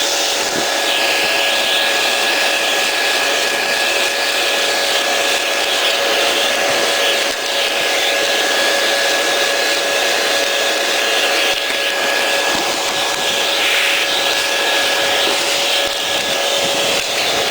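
Shop vac running steadily with a constant high whine while its nozzle vacuums dust from a refrigerator's condenser coils.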